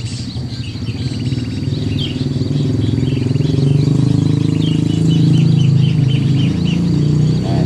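Sooty-headed bulbuls calling in a quick, repeated run of short chirps, the lure birds drawn in by MP3 playback of their own species' call. Under them runs a low hum that swells in the middle and eases off toward the end.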